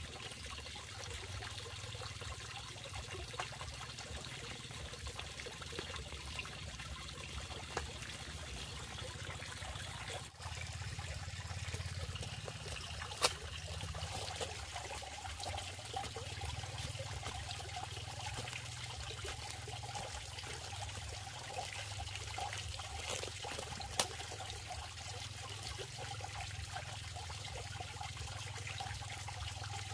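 Water running and trickling steadily, with two sharp clicks about ten seconds apart.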